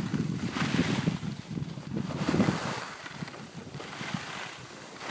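Wind buffeting the microphone: an uneven low rumble that swells and eases in gusts, loudest about halfway through.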